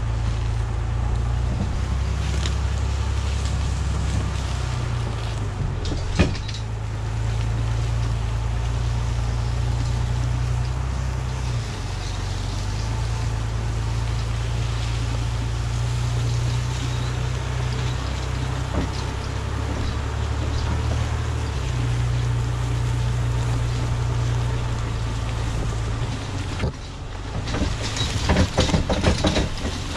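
Jeep Cherokee engine running at low speed while towing a log arch loaded with a heavy oak log, its low drone stepping up and down with the throttle. A single knock comes about six seconds in. Near the end, dense rattling and knocks take over.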